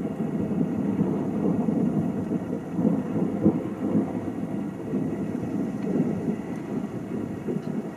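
Long rolling rumble of thunder from a storm, swelling and ebbing, fading toward the end.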